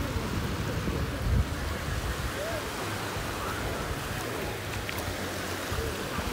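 Seaside ambience: surf washing on the shore, wind rumbling on the microphone, and faint distant voices.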